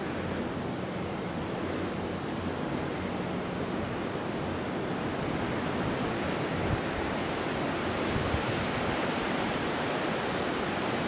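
Steady wind rushing through palm fronds and storm-battered trees, with some wind buffeting the microphone; it grows a little stronger about halfway through.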